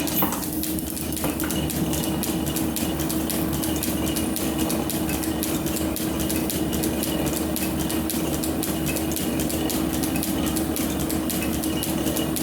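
Metal planer running through its cutting pass on a steel bar: a steady hum from the drive with a fast, even train of ticks, and one sharper knock right at the start.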